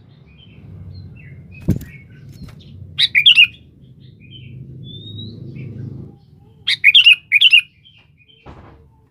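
Sooty-headed bulbul (kutilang) calling in short, loud bursts of three or four quick notes: one burst about three seconds in and two in quick succession near seven seconds. There is a short knock just before two seconds.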